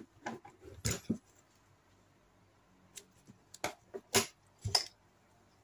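Scattered light clicks and knocks from a dropper post and its parts being handled and set down. A few come in the first second or so, and four sharper ones between about three and five seconds in.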